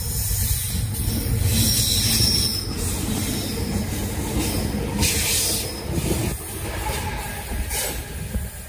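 A convoy of Freightliner Class 70 diesel locomotives running light passes close by: a heavy, continuous engine rumble with wheel and rail noise, loudest about two seconds in, and sharp rushes of noise as the locomotives go by, about five seconds in and again near the end.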